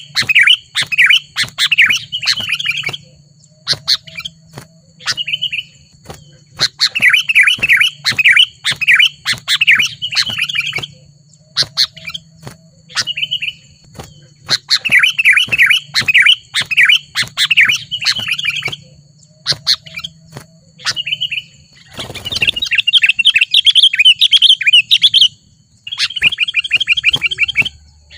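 Sooty-headed bulbul singing vigorously: repeated bouts of rapid chattering chirps a few seconds long, broken by short pauses and single sharp notes. A brief burst of noise about 22 seconds in.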